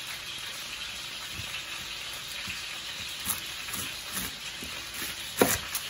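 Chicken thighs frying in a cast iron skillet, a steady sizzle. A knife cutting through a head of garlic knocks on a wooden cutting board a couple of times, loudest near the end.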